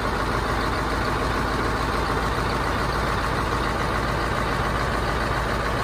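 Dump truck's diesel engine running steadily, driving the hydraulic pump as the telescopic tipper cylinder slowly lifts the body. The lift has gone slow at the cylinder's third stage.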